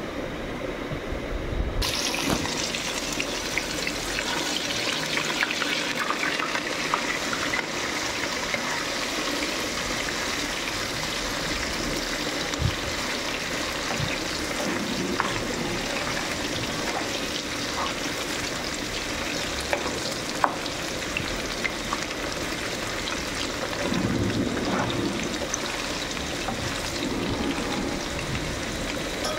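Paneer cubes shallow-frying in hot oil in a pan, a steady sizzle that sets in about two seconds in, with a few sharp taps of a metal spatula against the pan.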